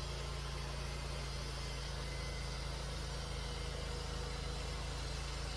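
Wood-Mizer LT40 band sawmill's engine running at a steady speed, an even hum with no change in pitch or level.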